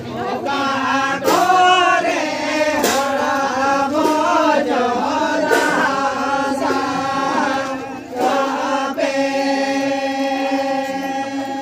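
A group of men singing a Santali lagre song together, their voices wavering over a steady low held note, with a few sharp drum strikes. The singing breaks briefly about eight seconds in, then picks up again.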